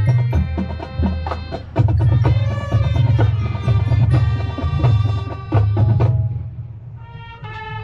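High school marching band playing, with sharp percussion strokes over sustained pitched notes and a strong bass line. The music thins out about six seconds in, leaving a few high notes, before the full band comes back.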